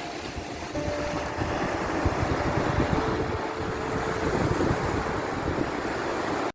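Sea surf washing in steadily with deep rumble and wind buffeting the microphone. A few faint held tones sound over it.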